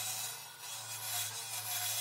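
Wood lathe turning a canary wood handle blank: a turning tool shears off shavings with a hiss that swells and fades, over the steady low hum of the lathe motor. Music plays underneath.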